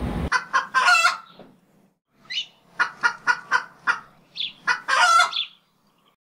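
Chicken clucking: a series of short, pitched clucks, about three a second, broken by a pause of about a second early on. The clucking stops shortly before the end.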